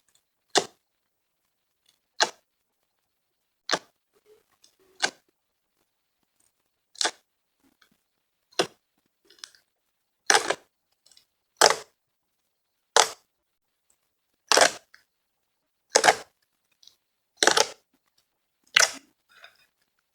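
Fluffy slime squeezed and pressed by hand, making short crackly squelching pops about once every second and a half, louder in the second half.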